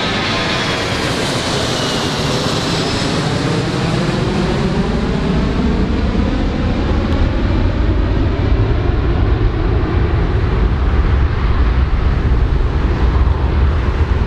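Engines of a large aircraft passing close by: a loud, steady noise whose whine slowly falls in pitch as the deep rumble grows stronger.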